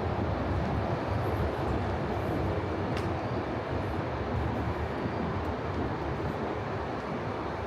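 Steady low rumble of city street ambience, like distant traffic, with a short click about three seconds in.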